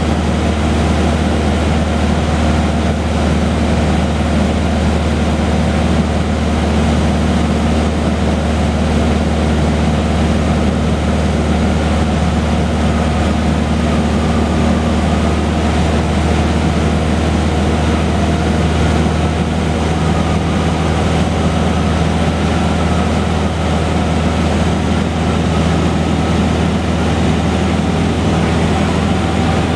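A Cessna 150H's four-cylinder Continental O-200 engine and propeller drone steadily from inside the cabin in flight, with a deep, unchanging hum.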